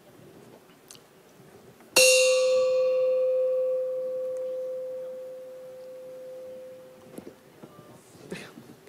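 A coin dropped into a metal bucket strikes once about two seconds in, and the bucket rings out with a clear, bell-like clang that slowly fades over about five seconds.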